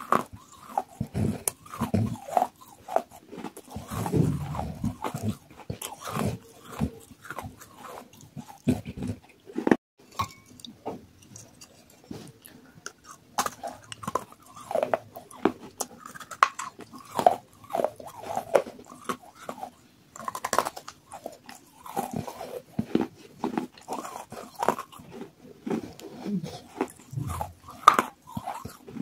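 Close-miked biting, crunching and chewing of water-soaked clay pot pieces, with many short, irregular crunches throughout.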